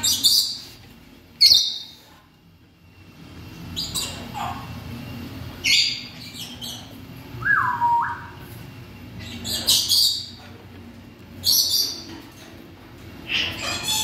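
African grey parrots calling: a series of short, high-pitched squawks every couple of seconds, with one whistled note that falls in pitch about halfway through.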